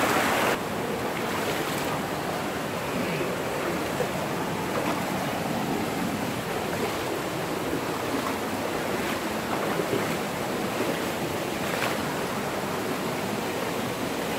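Rushing mountain stream: water pouring over rocks and fallen logs, loud for about the first half second, then dropping suddenly to a softer, steady rush of shallow creek water.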